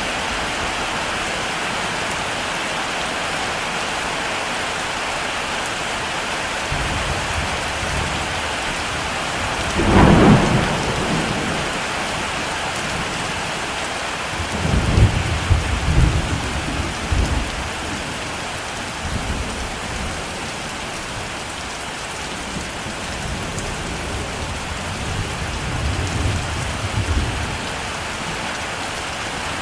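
Heavy rain falling steadily, with thunder: a sharp clap about ten seconds in, then low rolling rumbles several times through the rest.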